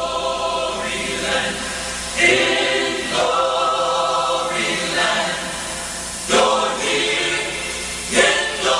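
Background music: a choir singing held chords that change every second or so.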